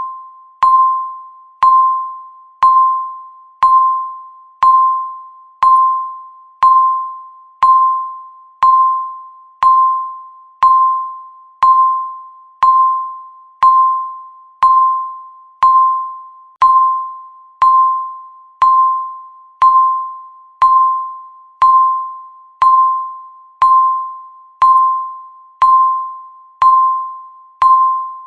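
Countdown timer's tick sound, once a second: each tick is a sharp click followed by a short ringing tone at one steady pitch that dies away before the next.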